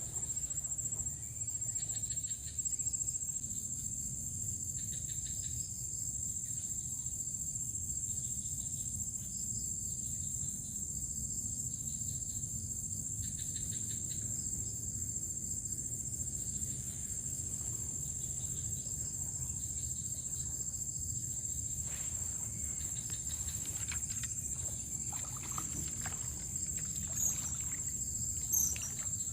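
A steady, continuous high-pitched chorus of insects chirring at a rice-field edge, over a low background rumble.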